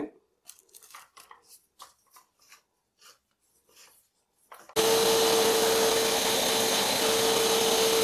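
Faint plastic clicks as a floor brush is fitted onto a vacuum wand. About three-quarters of the way in, an Inalsa Micro WD10 wet and dry vacuum cleaner's motor starts abruptly and runs steadily with a loud rushing noise and a steady hum.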